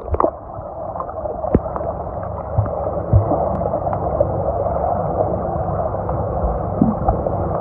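Muffled underwater sound of a swimming pool picked up by a submerged phone: a dull, steady rumble of moving water with a few short knocks and gurgles.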